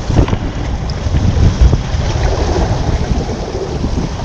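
Wind buffeting an action camera's microphone: a loud, steady low rumble, with a few brief bumps in the first two seconds.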